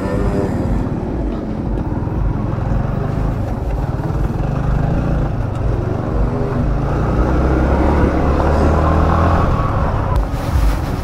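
Yamaha motorcycle engine running at low speed, with a rumble of wind on the microphone. From about seven seconds in it grows louder and its pitch rises as the bike speeds up.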